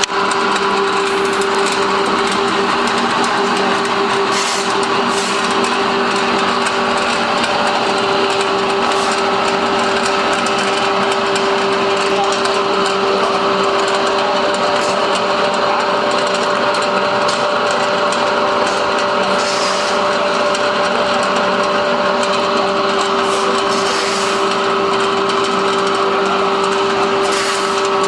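Small flat die sawdust pellet mill running steadily as it presses sawdust into pellets: a constant hum under a grinding, rattling noise, with a few brief hissing surges.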